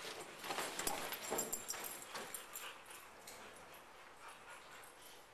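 Faint sounds of large dogs at play: scattered scuffs and clicks of paws on the floor with brief soft dog vocal sounds, mostly in the first three seconds, then dying down.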